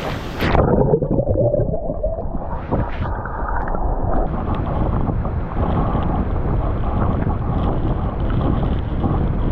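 A microphone goes under water about half a second in: the sound turns suddenly muffled, and the rest is a loud, dull underwater rumble and gurgle of the waterfall's churning plunge pool.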